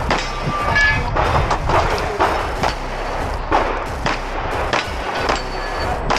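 Staccato XC pistol firing a string of shots, irregularly spaced about half a second to a second apart, at steel plates, some hits followed by a short metallic ring, over background music.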